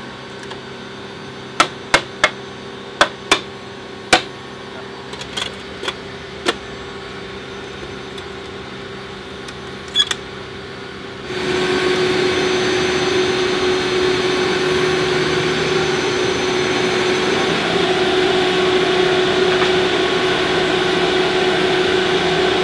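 Metal clicks and clanks of cargo roller-track fittings being flipped and latched in an aircraft cargo bay, a dozen or so sharp knocks over a steady hum. About 11 seconds in, a louder, even mechanical drone with a steady tone takes over.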